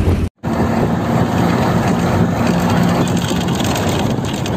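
Running noise of a moving bus heard from inside with the window open: steady engine drone under tyre and wind noise. A brief total dropout about a third of a second in breaks it.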